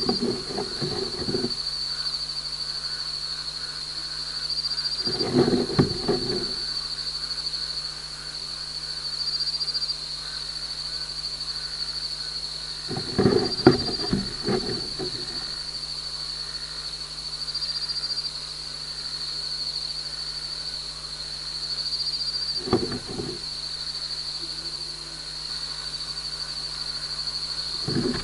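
A gecko's feet scratching and scraping on the mesh netting right over the microphone, heard very close as loud rustling scrapes in several short bouts of a second or two each, over a steady high-pitched background drone.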